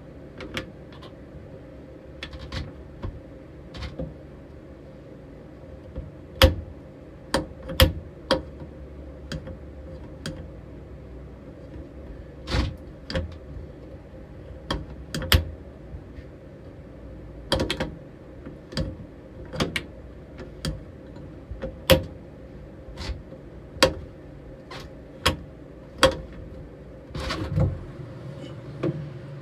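Boot-lid latch of a 1968 Triumph TR250 knocking and clicking against its striker plate as the lid is lowered and pushed down again and again, about twenty sharp metallic knocks at irregular intervals from about six seconds in. The latch is hitting out of line and not catching cleanly, which is why it is being watched and adjusted.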